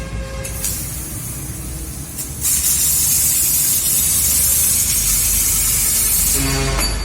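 CNC laser cutter cutting sheet steel: loud, steady hiss of the cutting-head gas jet, which drops away for about two seconds near the start and then comes back. Near the end, a machine hum with steady tones joins in.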